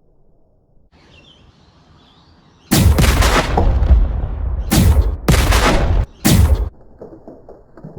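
Gunfire sound effects: a loud burst of shots about two and a half seconds in that lasts about two seconds, then three shorter bursts in quick succession.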